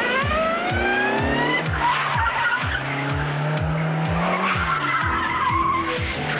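A Rover car's engine revving up in a rising pitch, then tyres squealing for a few seconds as the car is driven hard. Background music with a steady beat plays throughout.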